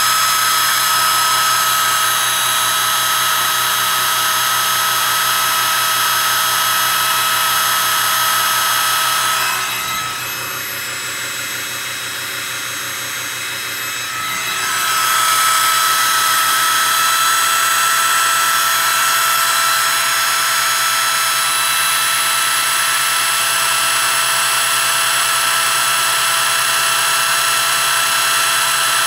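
Electric drill running flat out, driving a small wind generator's shaft at about 1950 RPM, the top speed it can reach; a steady, unchanging high whine. It turns quieter for about five seconds midway, then returns to full level.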